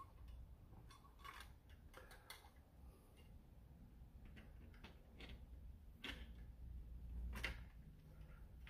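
Faint handling noise: a few quiet clicks and taps as a metal plunger tube is slid over a foam blaster's spring and plunger and set into its plastic shell.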